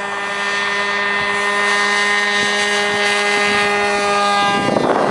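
The engine and propeller of a radio-controlled model cargo airplane run at a steady high pitch, an unchanging buzzing whine. A rush of wind noise comes in near the end.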